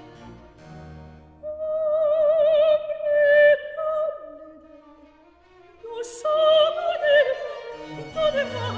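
A soprano singing a slow baroque opera aria in full operatic voice with a wide vibrato, holding long notes over quiet instrumental accompaniment. The voice drops out for a moment near the middle before the next phrase begins.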